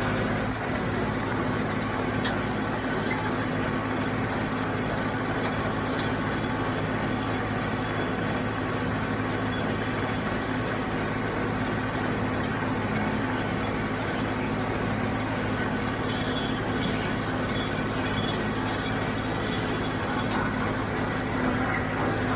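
John Deere 5055D tractor's diesel engine running steadily under load, driving a John Deere 348 square baler while baling hay, with faint scattered clicks from the machinery.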